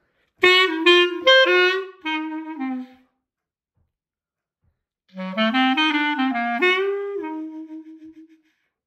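Buffet R13 Prestige Green Line clarinet played solo in a blues: a short phrase of quick notes about half a second in, about two seconds of silence, then a second phrase that starts about halfway through and trails off near the end.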